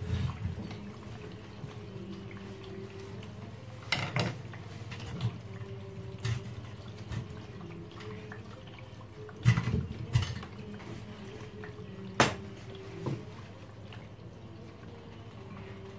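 Irregular metallic clinks and knocks as an old wall clock's movement is handled and adjusted in its metal frame, with one sharper click about twelve seconds in. A steady low hum runs underneath.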